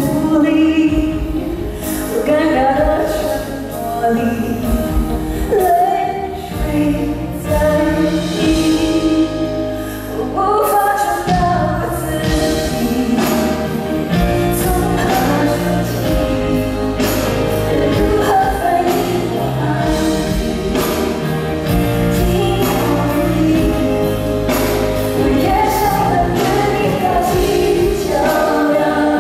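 Live concert performance of a Cantopop ballad: a woman singing over band accompaniment with a drum beat, recorded from the audience in an arena.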